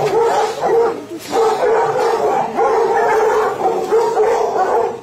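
A large pack of hunting hounds giving voice all at once: a dense chorus of many overlapping, wavering whines and yelps from dogs excited at food set out in front of them. The chorus dips briefly about a second in.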